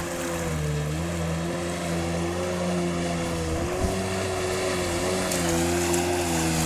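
Yamaha 800 jet ski engine running at speed out on the water: a steady drone that wavers slightly in pitch.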